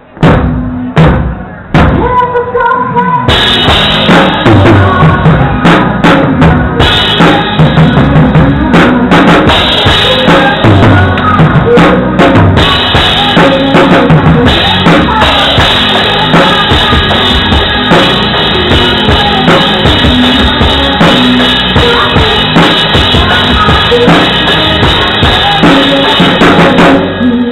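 Drum kit played hard in a live band: a few single drum hits, then about three seconds in the full kit and band come in together, with steady bass drum and snare strokes and cymbals under the band.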